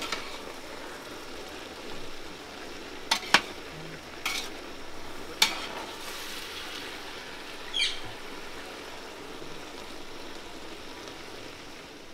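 Vegetables frying in oil in a large aluminium pot, with a steady sizzle, while a metal ladle stirs and scrapes through them. A few sharp knocks come as the ladle strikes the pot, between about three and five and a half seconds in.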